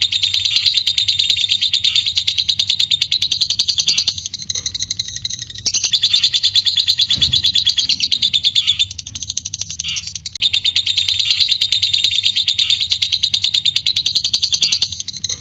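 Lovebird giving its long 'ngekek' chatter: shrill, very rapid repeated notes run together in long bouts, breaking off and starting again twice.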